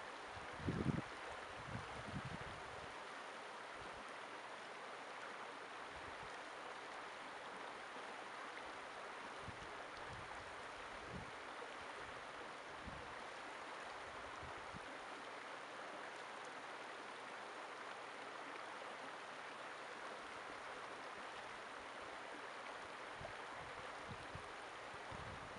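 Shallow river running over rocks: a steady rushing of water, with a few brief low thumps near the start.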